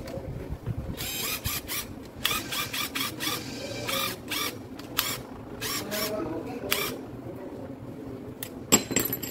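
Irregular metallic clicks and taps as a long steel driver bit is handled on a workbench, ending with one sharp, ringing metal clink near the end.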